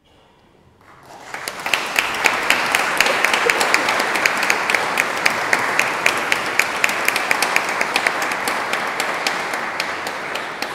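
Audience applauding, rising about a second in after a short hush and tapering off near the end, with many single sharp claps standing out.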